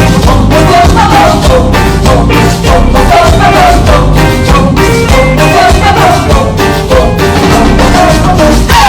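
Loud music with a quick steady beat and a wavering lead melody.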